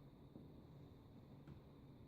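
Near silence: low room tone with one faint click about one and a half seconds in.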